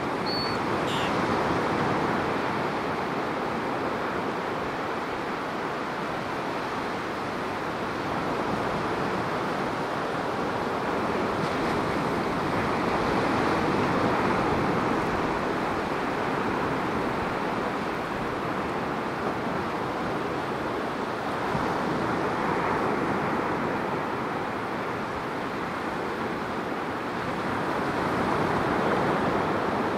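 Ocean surf breaking along the beach and washing up the sand: a steady rush of waves that swells and eases every several seconds.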